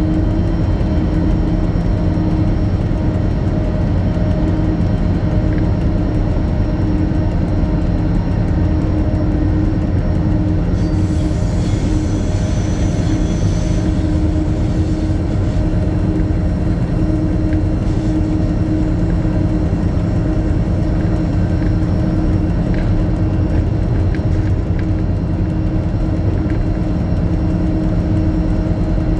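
Diesel locomotive engine running at a steady speed with a constant hum. From about eleven to fourteen seconds in, a brief high-pitched noise sounds over it.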